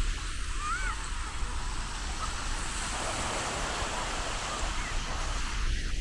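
Small waves breaking and washing up a sandy shore, the surf wash swelling about halfway through. Wind rumbles on the microphone.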